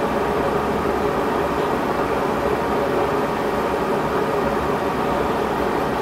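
A steady mechanical hum with hiss, even and unbroken.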